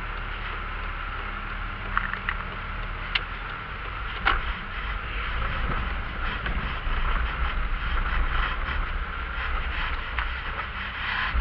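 Chevrolet car running and being driven slowly, heard from inside the cabin: a steady low engine and road rumble, with a few sharp clicks and knocks about two to four seconds in.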